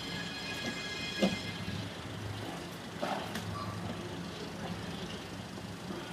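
Portable generator running with a steady hum, while tent-dismantling work makes a sharp knock about a second in and a rattling clatter about three seconds in.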